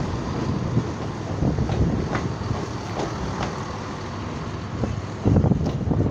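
ScotRail diesel multiple unit running past and away along the platform: a steady low rumble with a few light clicks. A louder low buffeting about five seconds in, like wind on the microphone.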